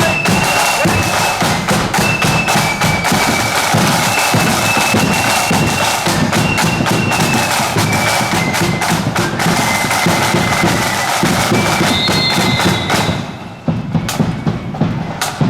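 Marching flute band playing a tune: shrill high flutes over side drums and a bass drum beating a steady march. About thirteen seconds in the flutes stop and the drums beat on alone.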